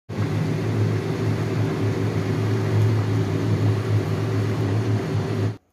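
Steady low mechanical hum with an even rushing hiss in the kitchen while red curry simmers in a wok; it cuts off suddenly near the end.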